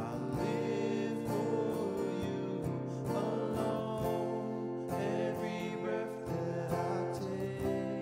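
Slow worship song on strummed acoustic guitar, with some singing.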